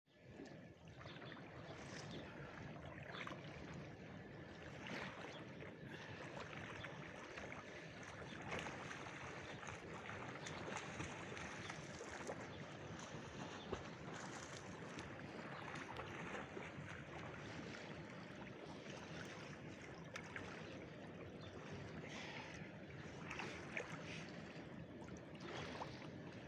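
Calm sea water lapping and splashing softly right at the microphone, with small irregular splashes throughout.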